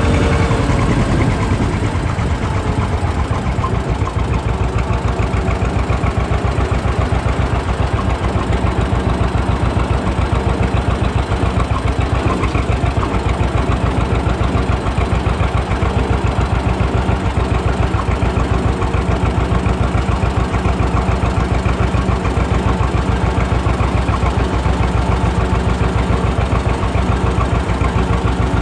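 John Deere 630 two-cylinder tractor engine running steadily while the tractor is driven, with an even, regular exhaust beat heard from the operator's seat.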